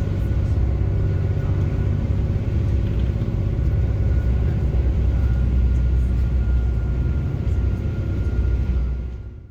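A tour boat's engine running steadily while under way on the lake: a loud, even low rumble with a faint steady hum above it.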